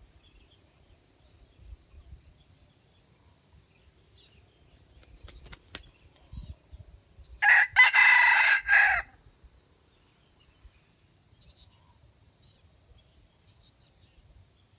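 A red junglefowl rooster crows once, a loud call about a second and a half long, in the middle of the clip.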